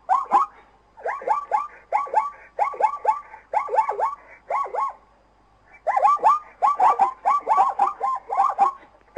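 Zebra calling: bouts of rapid, yelping barks, several a second, with short breaks and a longer pause about five seconds in.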